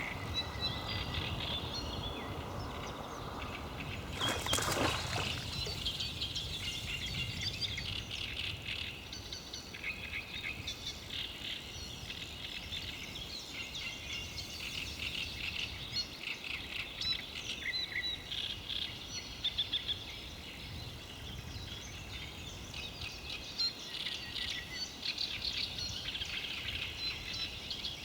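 Many songbirds singing at once, a steady chorus of chirps and trills. About four and a half seconds in, a brief rushing sound rises over them.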